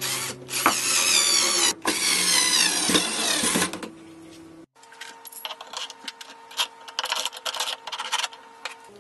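Factory machining noise: a loud hissing cut with a wavering high whine for about three and a half seconds. After an abrupt break, a quieter steady machine hum follows, with scattered clicks.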